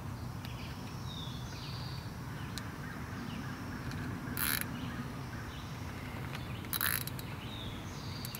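Two short plastic rasps of zip ties being pulled tight, about two seconds apart, over birds chirping and a steady low hum.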